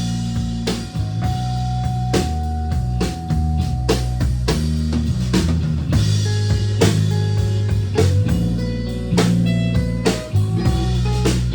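Live rock band playing an instrumental passage: guitar over a drum kit beat, with no singing.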